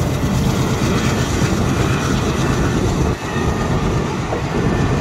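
Passenger train running past at close range over a road level crossing: a steady, loud rumble of coaches on the rails, with a brief drop in level about three seconds in.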